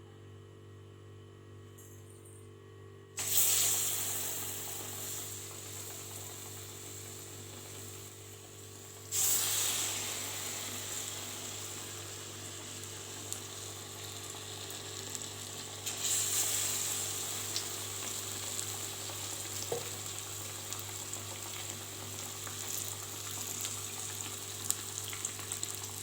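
Batter-dipped onion slices frying in hot groundnut oil in a kadai, with a steady sizzle. The sizzle starts suddenly about three seconds in and jumps louder again at about nine and sixteen seconds as more pieces are dropped into the oil.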